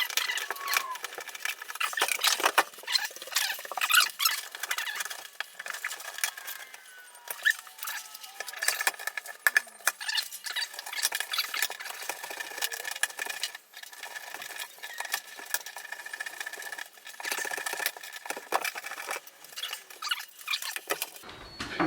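Irregular light clicks, scrapes and squeaks of metal hardware being worked loose with a small hand tool as a door is taken off its hinges.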